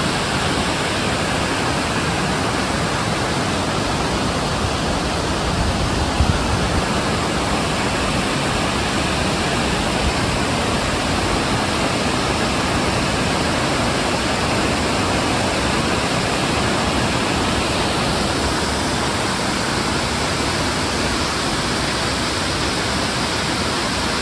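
Waterfall rushing: a steady, even roar of falling water, with a brief louder bump about six seconds in.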